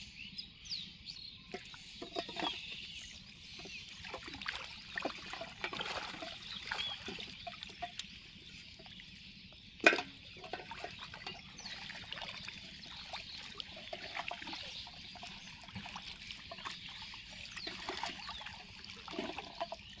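Shallow pond water splashing and trickling in small irregular bursts as a person wades through it among water hyacinth, over steady bird chirping. One sharp knock stands out about halfway through.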